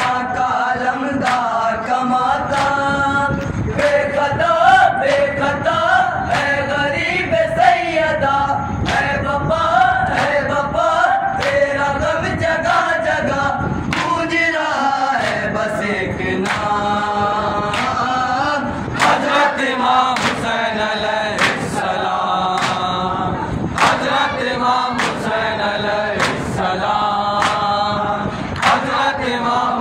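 Group of young men chanting an Urdu noha for Imam Hussain in unison over a microphone, with mourners' hands striking their chests (matam) in a steady beat, roughly once a second.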